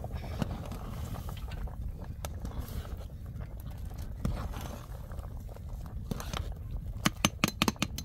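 Open wood cooking fire burning with a steady low rumble and scattered faint crackles. About seven seconds in, a quick run of sharp metal clinks as a ladle knocks against the aluminium pot and pan.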